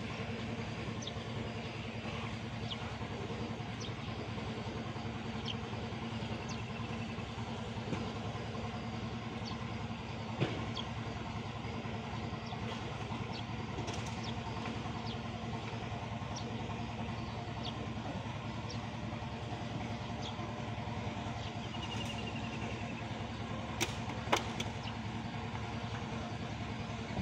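A boat's engine idling steadily in a low, even hum. A few sharp knocks sound over it, one about ten seconds in and two close together near the end.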